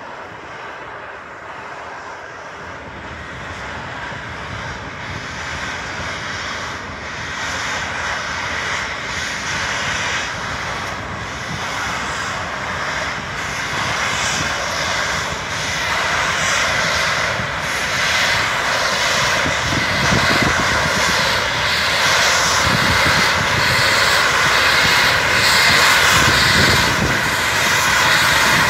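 Union Pacific 4014 Big Boy, a 4-8-8-4 articulated steam locomotive, approaching under way. Its exhaust and running noise grow steadily louder as it draws close.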